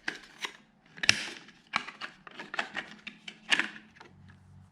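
Irregular clicks and knocks of handguard deflector parts and their screws being handled and fitted together, with two louder knocks about a second in and near three and a half seconds.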